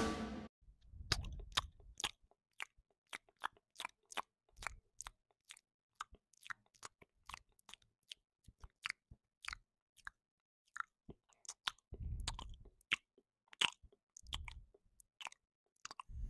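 A cat eating from a saucer, chewing in many short, sharp clicks, a few each second.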